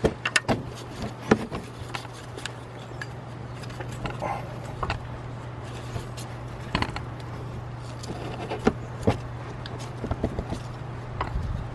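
Irregular clicks and knocks of hand tools such as sockets, ratchets and wrenches handled and set against metal during engine-bay work, over a steady low hum.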